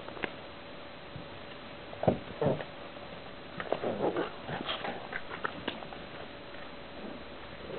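Puppies yipping and whimpering in short bursts, a sharp one about two seconds in and a busier run of them a couple of seconds later.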